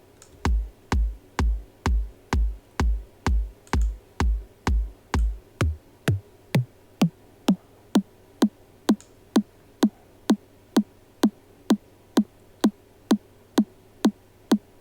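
Electronic 4/4 kick drum sample looping at about two hits a second while its pitch is checked; it sounds like A. About six seconds in, the kick changes from deep, booming hits with a long low tail to short, higher-pitched thuds.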